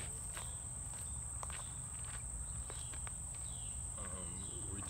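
A steady high-pitched insect chorus, typical of crickets, with footsteps crunching on a dirt-and-gravel path as a person walks up.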